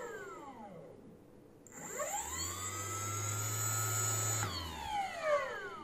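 Belt-drive electric skateboard motor spinning the free wheel under remote throttle on a bench test. A whine falls away at the start, rises again about two seconds in, holds steady, then falls as the motor winds down near the end.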